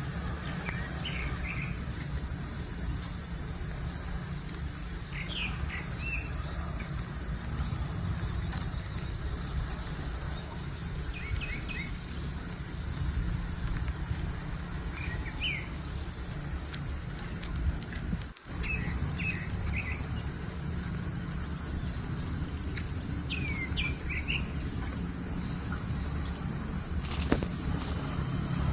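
A steady high-pitched chorus of insects such as crickets, with small birds chirping in short bursts every few seconds over a low steady rumble. The whole sound drops out for an instant about two-thirds of the way through.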